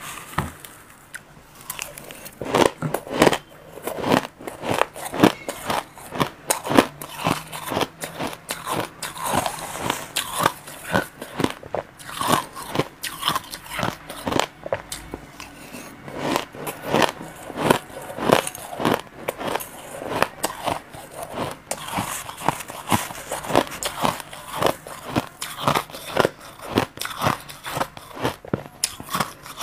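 Crushed ice being bitten and chewed close to a clip-on microphone: a dense run of sharp, crisp crunches, several a second, throughout.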